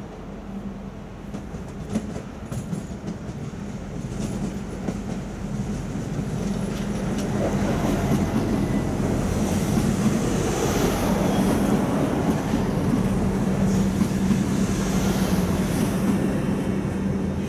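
Bombardier Itino diesel railcar approaching and running past along the platform. Its diesel engines give a steady hum that grows louder over the first several seconds, with the wheels clacking over rail joints.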